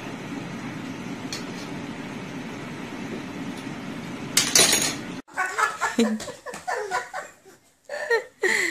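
Steady hum and hiss of room noise, then a loud clatter of a plastic kitchen utensil on a tile floor about four and a half seconds in. After an abrupt cut, a small child's voice babbles in short bursts.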